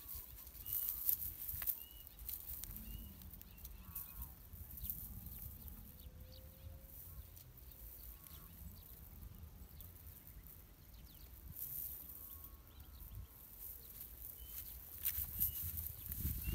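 Wind rumbling on the microphone, with scattered short bird chirps and other distant animal calls.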